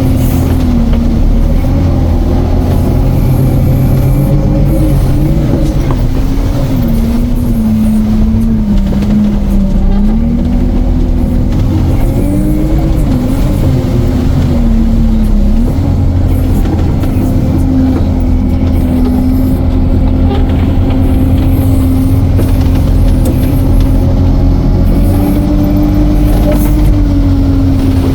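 The engine of the "Veter" all-terrain vehicle running steadily under load as it drives, loud throughout. Its pitch sags a little about a third of the way in, wavers, then holds even.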